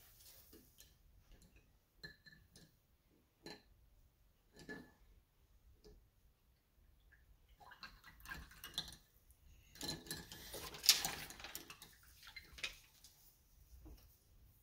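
Light clicks and clinks of painting supplies being handled on a tabletop: scattered single taps at first, then a denser run of clinking and clatter about eight to twelve seconds in, loudest near eleven seconds.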